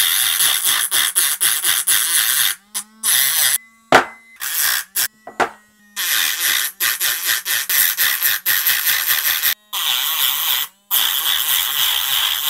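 A mini rotary tool (a small Dremel-type grinder) with a small grinding disc abrades the metal end terminals of Samsung 30Q 18650 lithium-ion cells. It makes a high grinding hiss in runs of a second to several seconds, broken by short pauses where only a low motor hum remains. The grinding roughens the terminals to prepare them for spot-welding nickel strip.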